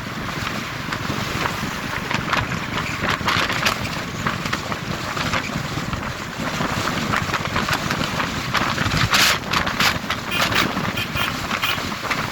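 Wind buffeting the microphone of a motorcycle moving at speed on a highway, over steady engine and road noise. Harder gusts hit the microphone several times about nine to eleven seconds in.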